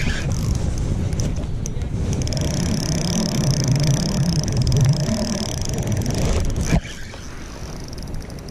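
Handling noise from a spinning rod and reel rubbing and scraping against a chest-mounted camera while the reel is cranked during a fish fight. The rubbing cuts off suddenly near the end, leaving fast, even ticking from the reel being wound, a reel the angler says is acting up.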